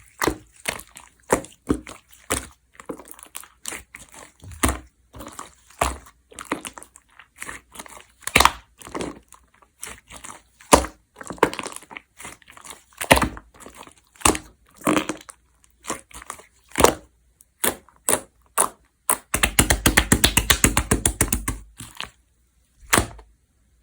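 A large batch of slime being squeezed and poked by hand, giving irregular sticky pops and clicks. About four-fifths of the way in comes a rapid run of crackling pops, then a last single pop.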